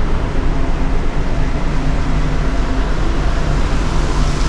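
Steady low rumbling roar of wind buffeting the microphone on an open ship's deck, with a faint steady hum underneath.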